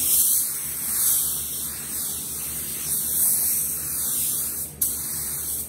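Air paint spray gun hissing as it sprays paint onto a rifle magazine. The trigger is released for a moment near the end, then pulled again.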